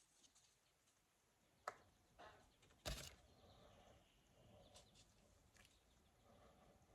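Near silence with a few faint clicks and taps from handling a small fitting: a sharp click a little under two seconds in, a softer one just after, and the loudest click about three seconds in.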